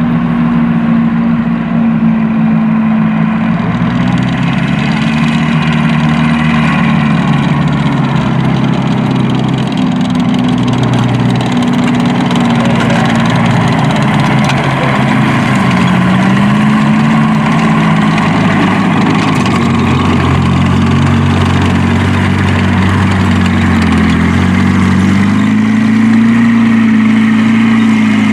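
Engines of WWII tanks working over dirt: an M24 Chaffee, with its twin Cadillac V8s, climbing a mound, and an M4 Sherman driving past. The engines run loudly throughout, and their pitch dips and rises several times as they are throttled up and down.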